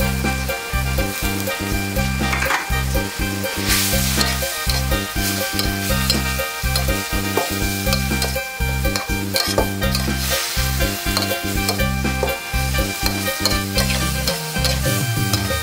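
Metal spatula scraping and tossing a pork and basil stir-fry around a steel wok in repeated strokes, with the food sizzling.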